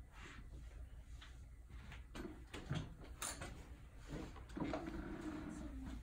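Quiet classroom sounds: pencils writing and scratching on paper, papers shuffling and small knocks on desks, with a faint child's voice partway through.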